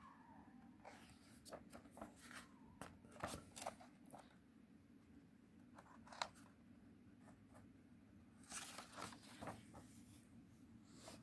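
Faint rustles and light ticks of a picture book's paper page being handled and turned, with a short stretch of rustling about two-thirds of the way through.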